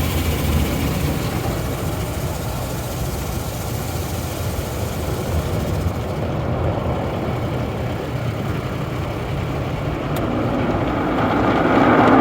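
Automatic car wash heard from inside a car going through it: the car's engine idling under a steady hiss of wash spray that thins out about six seconds in, then a louder rush of water and machinery building near the end.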